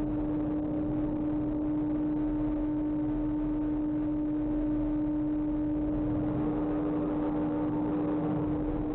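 A steady low droning tone held at one pitch without a break, with fainter higher tones over a low rumble.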